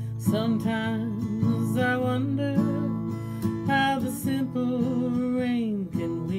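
A song with strummed acoustic guitar and a held, wavering melody line over the chords that slides down shortly before the end.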